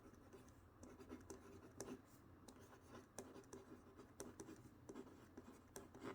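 Faint scratching of a Kuru Toga 0.7 mm mechanical pencil's blue colored lead writing on paper, with irregular small ticks from the strokes.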